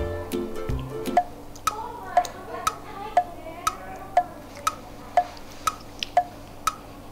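Background music stops about a second in. A clock tick-tock sound effect follows, with about two ticks a second alternating between a lower and a higher tick, the kind of ticking used to mark puzzled waiting.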